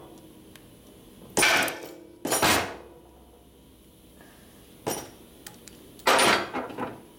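Steel sockets and a ratchet clanking against each other and on the bench as they are swapped while looking for the one that fits the swing-arm pivot nut. There are two metallic clanks about a second and a half in, a lighter one near five seconds, and the loudest just after six seconds, each ringing briefly.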